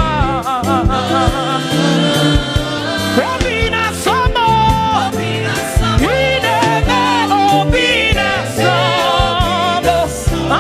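Live gospel music: a voice singing wavering, sliding melodic runs over a band with a steady drum beat and bass.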